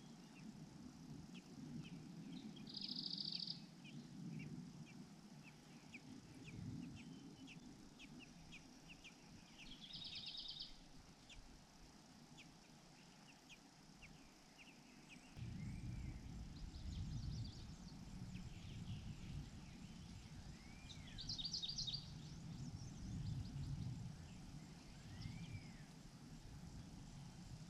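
Small birds calling: scattered high ticks and several short, rapid chirping bursts, with a few soft whistled notes that rise and fall in the second half. A low rumble of background noise underneath gets louder about halfway through.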